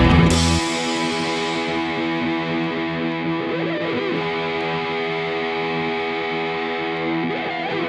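Background rock music with distorted electric guitar: the drums and bass drop out about half a second in, leaving ringing guitar chords that cut off at the end.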